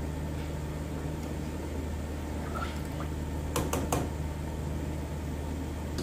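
Spatula stirring rice in a stainless steel pot of boiling water, then knocked against the pot's rim in three quick taps about three and a half seconds in. A steady low hum runs underneath.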